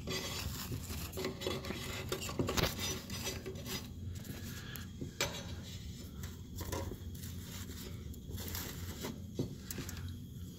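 Sticks of wood scraping and clattering against the perforated metal shelf and brick edges of a homemade rocket stove's feed opening as they are pushed in. A dense run of scrapes and knocks fills the first four seconds, then thins to scattered clicks.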